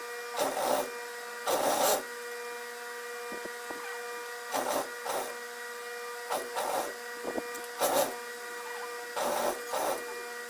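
Siruba four-thread industrial overlock (serger) machine with its motor humming steadily, broken by short bursts of stitching as the bedsheet edge and elastic are fed through.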